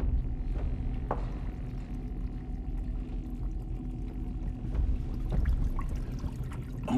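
A steady low droning hum with a few faint ticks over it.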